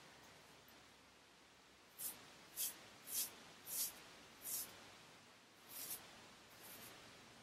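George Wostenholm IXL 7/8 straight razor scraping through lathered stubble: five short strokes about two-thirds of a second apart, then two more after a brief pause, the last one fainter.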